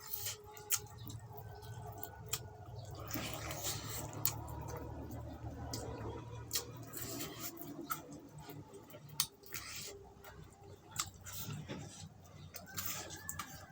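Close-miked chewing of pork fat: wet squishes and lip smacks at irregular intervals.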